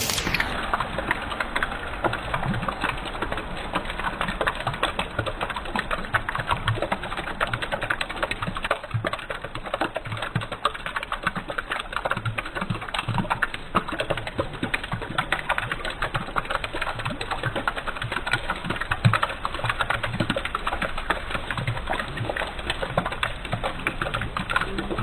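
Raindrops pattering: a dense, irregular stream of small taps.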